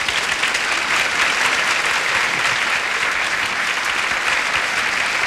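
Audience applauding steadily, a dense wash of clapping.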